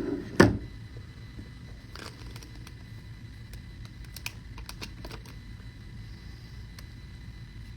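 A phone handled close to its microphone: a sharp knock about half a second in, then scattered light clicks and taps over a low steady hum.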